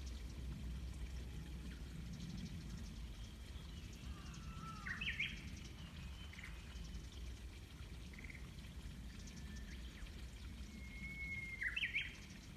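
Japanese bush warbler (uguisu) singing its song twice, about four seconds in and again near the end: a held whistled note followed by a quick rising-and-falling flourish. A steady low rumble runs underneath.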